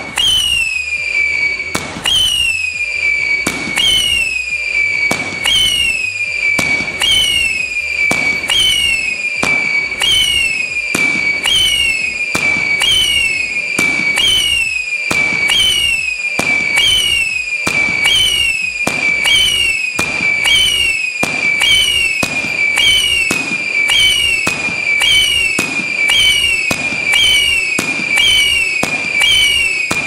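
A 25-shot whistling fireworks cake firing shot after shot, about one a second. Each shot is a short pop followed by a whistle that slides down in pitch.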